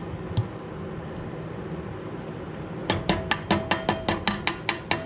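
A hoisin sauce bottle with soy sauce added being shaken hard to rinse out the last of the sauce: a quick run of about a dozen sloshing knocks, about five a second, starting about three seconds in.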